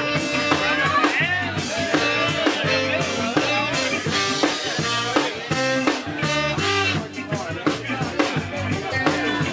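Live reggae band playing an instrumental passage: guitar and drum kit over a steady beat, no vocals.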